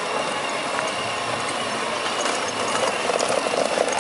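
Electric ride-on toy jeep's small motor and plastic wheels on concrete, a steady whir and rattle. It grows louder, with a rapid pulsing, about three seconds in as the jeep comes close.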